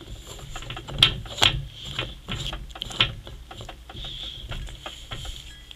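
Screw cap of a home water carbonator bottle being twisted on by hand: a run of irregular clicks and ratchet-like ticks, with a few louder knocks about a second in and about three seconds in.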